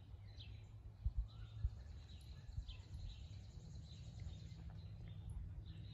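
Outdoor ambience: faint bird chirps scattered over a steady low background rumble, with a couple of brief low thumps about a second in.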